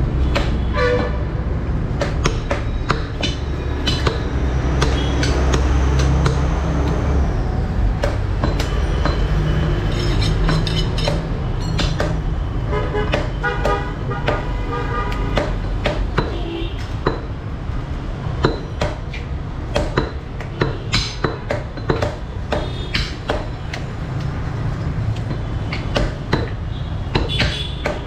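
Cleavers striking beef on wooden tree-stump chopping blocks in irregular chops, coming thicker and louder in the second half. Underneath runs a steady low rumble of street traffic, with vehicle horns tooting now and then.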